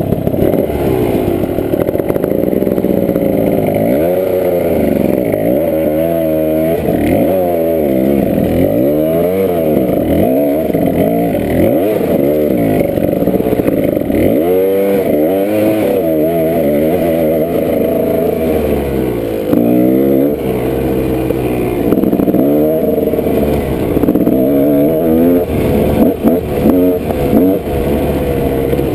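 Kawasaki dirt bike engine revving up and down over and over while climbing a rocky hill, its pitch rising and falling every second or two as the throttle is worked.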